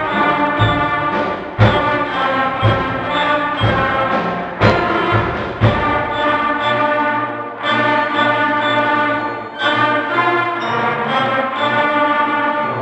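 Junior high school band playing at a concert: full ensemble chords, with a steady low drum beat in the first half and held chords after.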